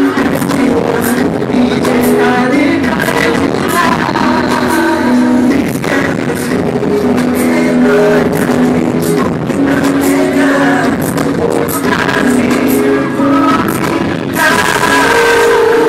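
Male K-pop group singing a ballad live over amplified music, recorded from the audience in a large hall. The music gets fuller and louder near the end.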